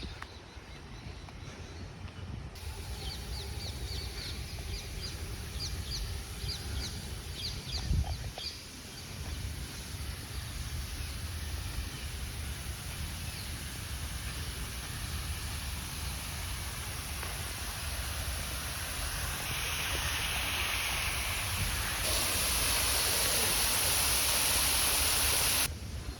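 Outdoor garden ambience with a low rumble. About three seconds in, a bird calls in a rapid run of short high chirps for a few seconds. A single thump comes near eight seconds, and later a loud steady hiss sets in that cuts off suddenly near the end.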